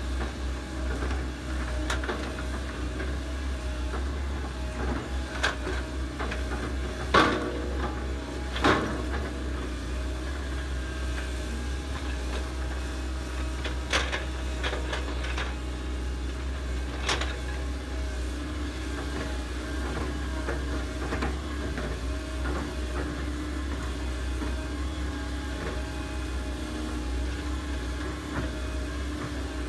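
Diesel engines of hydraulic excavators, a Komatsu nearest, running steadily as they dig, with a few sharp metallic clanks, the two loudest about seven and nine seconds in.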